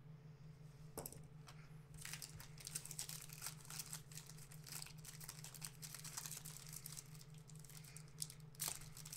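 Foil trading-card pack wrapper torn open and crinkled by hand: a click, then a dense run of faint, crisp crackles.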